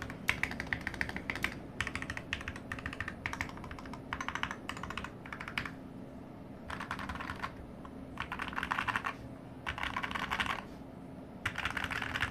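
Typing on a modded Skyloong SK64S optical mechanical keyboard: quick runs of keystrokes in bursts, with short pauses between them.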